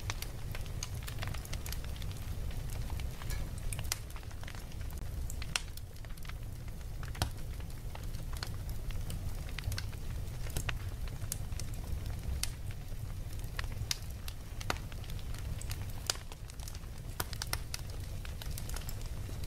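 Charcoal fire crackling under a steel kettle, with sharp pops at irregular moments over a steady low rumble.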